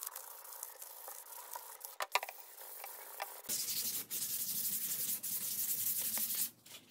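Sandpaper rubbed by hand over wood, a steady abrasive scratching of back-and-forth strokes. It turns louder and coarser about halfway through, with a few light knocks around two seconds in, and stops just before the end.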